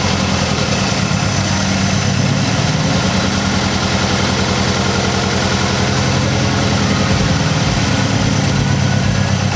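2006 Mazdaspeed 6's turbocharged 2.3-litre four-cylinder idling steadily just after being started. It has a bad misfire, which the owners suspect comes from a failing ignition coil pack.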